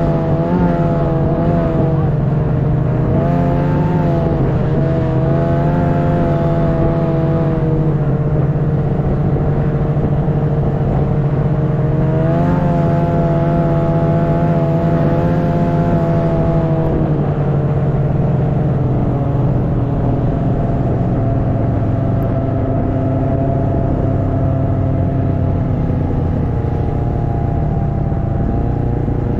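Snowmobile engine running under way, its note rising and falling with the throttle. The pitch drops about two-thirds of the way through and climbs again near the end.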